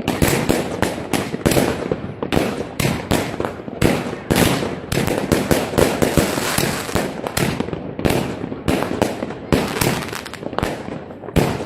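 Fireworks and firecrackers going off continuously: a dense, irregular run of sharp bangs and crackles, several a second, overlapping.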